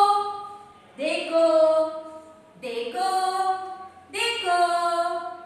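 A woman singing a Hindi children's rhyme about an elephant, unaccompanied, in about four short phrases of long held notes with brief pauses between them.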